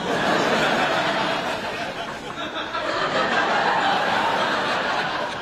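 Studio audience laughing, one loud, unbroken stretch of laughter.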